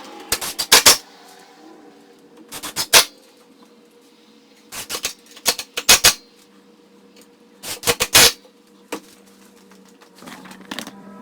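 Sharp knocks and clacks in quick bunches of several strikes, about four bunches a couple of seconds apart, over a faint steady hum.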